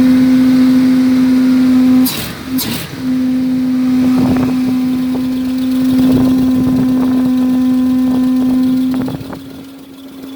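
RV engine held at high, steady revs in gear against the brakes, as in a transmission stall test. It breaks off briefly about two seconds in, picks up again, and falls away near the end.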